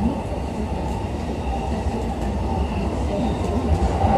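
A JR East E233 series commuter train running, heard from inside its KuHa E233-1031 end car: a steady rumble of wheels on the track and car-body noise.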